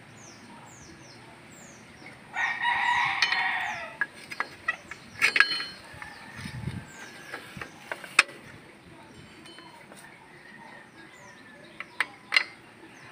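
A rooster crows once, about two seconds in, for nearly two seconds: the loudest sound here. Sharp metallic clicks and taps follow as the new brake shoes and return spring are fitted into the drum brake, with a small bird chirping repeatedly in the background.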